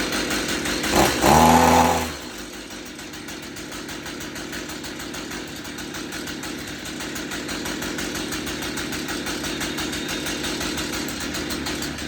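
Stihl MS 162 two-stroke chainsaw engine running after the water has been cleared from its cylinder: revved briefly about a second in with a rising pitch, then dropping back to a steady idle.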